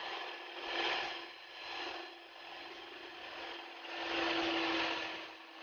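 Electric hand mixer on a stand running, its twin beaters churning a dry, crumbly flour-and-butter batter in a plastic bowl. A steady motor hum under a rough scraping, churning noise that swells and fades as the beaters work through the mix.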